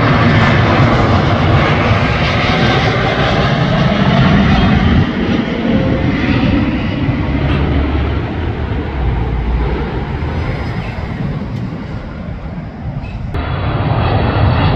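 Jet engines of a British Airways Airbus A321 on final approach with gear down, a loud steady rumble that eases off through the middle as it passes. About a second before the end it cuts abruptly to another airliner's engine rumble.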